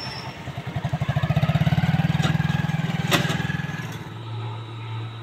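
A motorcycle engine passing close at low speed, its pulsing note growing louder and then fading over a few seconds, with a sharp click about three seconds in. Near the end, a steady low hum.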